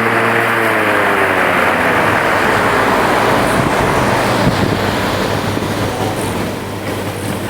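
Converted Black and Decker electric lawn mower running, with the blade cutting grass. About half a second in, its hum slides down in pitch as the motor takes on load in grass 12 to 20 inches high, and a steady rushing noise takes over.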